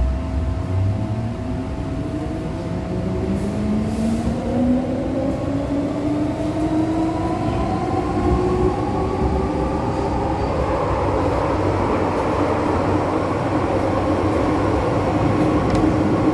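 MTR M-Train electric multiple unit pulling away and accelerating, heard inside the car. Its motor whine rises steadily in pitch from about two seconds in, over a growing rumble of wheels on the track.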